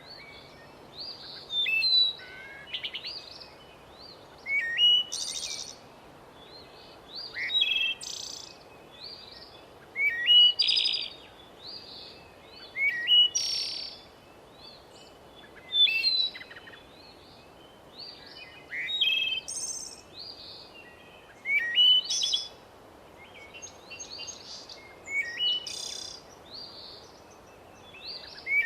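Songbirds singing, a short chirping phrase repeated every two to three seconds over a faint steady hiss.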